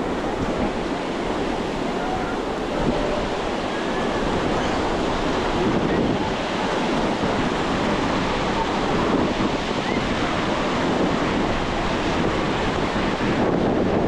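Ocean surf breaking and washing on a beach in a steady, continuous rush, with wind buffeting the microphone.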